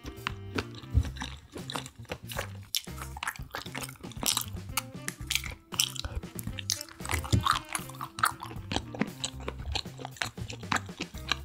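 Close-miked chewing of seafood, many short crunchy bites and chews, over background music.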